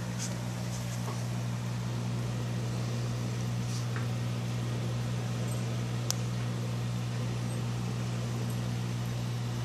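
Aquarium running: a steady low hum from its pump under the continuous fizz of a curtain of air bubbles rising through the water. A single small click about six seconds in.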